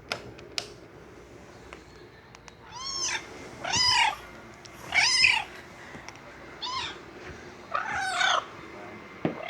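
A series of about five cat meows, beginning about three seconds in and coming roughly one a second, each rising and then falling in pitch, the fourth fainter than the rest.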